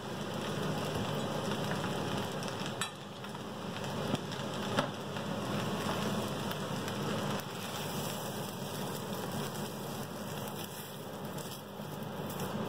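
Fried rice sizzling in a hot steel wok as it is scraped out with a wooden spatula, a steady hiss with two sharp knocks of the spatula on the wok, about three and five seconds in.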